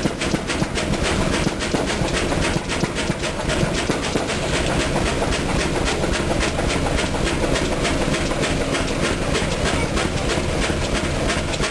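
1924 Chicago Pneumatic 50 hp horizontal diesel engine running, a steady, even clatter of rapid knocks.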